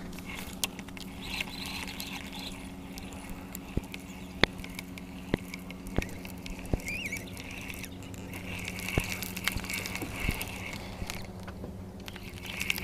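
Steady low hum of a small boat motor, with scattered sharp clicks and knocks from fishing gear against the boat, and a short bird chirp about seven seconds in.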